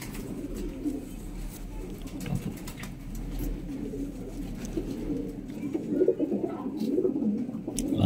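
Domestic pigeons cooing, a low burbling that grows louder over the last few seconds, with a few faint clicks.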